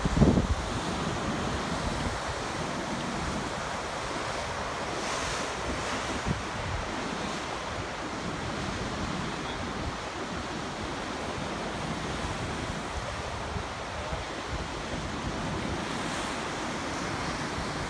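Surf washing and breaking around the base of sea cliffs, a steady wash of waves, with wind buffeting the microphone in a short gust at the start and in occasional low rumbles.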